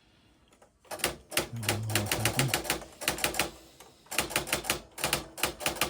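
Royal Scriptor AX-150 electric typewriter typing: rapid sharp key strikes in two bursts, with a short pause between them.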